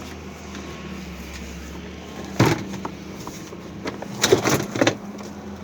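Knocks and clatter from washing-machine parts being handled: one sharp knock about two and a half seconds in and a quick run of knocks near the end, over a steady low hum.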